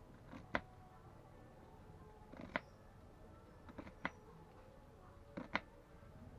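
Sharp knocks in close pairs, four pairs spaced about a second and a half apart, over a faint steady background.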